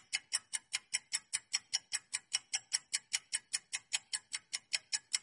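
Quiz countdown-timer sound effect: a clock-like ticking, even and fast at about five ticks a second, counting down the seconds left to answer.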